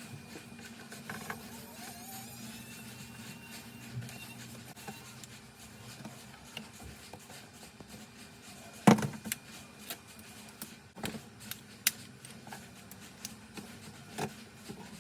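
Scattered small clicks and taps from a smartphone being opened with hand tools on a workbench, with one louder sharp knock about nine seconds in, over a low steady hum.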